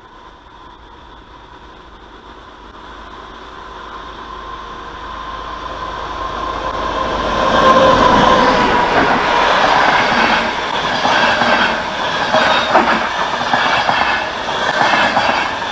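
Passenger train approaching, growing steadily louder for about eight seconds, then running close by with wheels clattering over the rail joints and a faint squeal.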